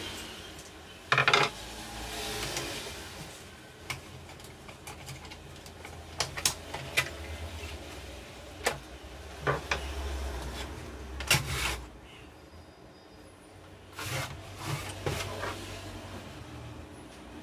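Plastic covers and side panel of an HP LaserJet 1020 Plus printer being handled and pried off by hand: irregular clicks, knocks and scraping, with sharper snaps about a second in and again a little past the middle.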